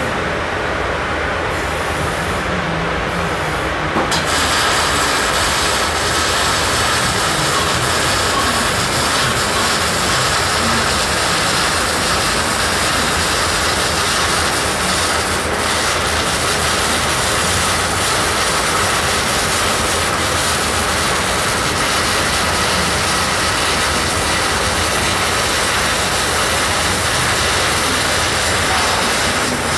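Arc welding on a base column: a loud, steady hiss that fills out about four seconds in and runs on without a break.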